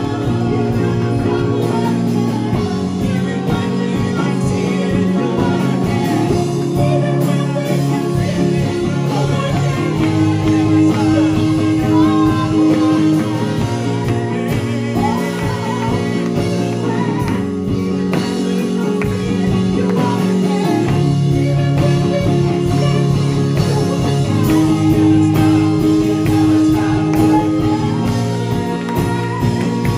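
Live gospel worship song: a solo singer singing into a microphone over steady keyboard and band accompaniment.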